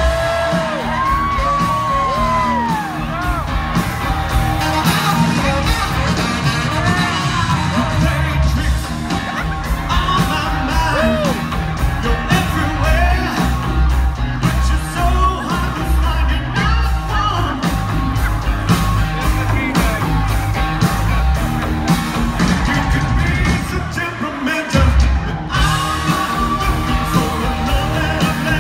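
Live rock band playing: drums, bass and guitar under a lead singer, with saxophone, and yells and whoops from the crowd over the music.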